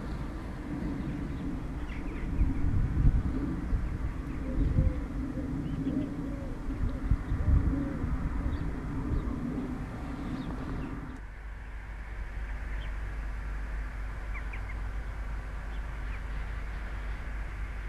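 Wind buffeting the microphone over a low steady rumble from a distant freight train, with birds calling. A little over ten seconds in the sound changes abruptly to a quieter, steadier background with faint bird chirps.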